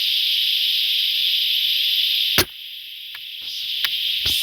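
Loud, steady buzzing chorus of cicadas; about halfway a single sharp shot from the Fox SR1000 cracks out, and the cicadas fall silent at once, then slowly swell back in, with a few faint clicks.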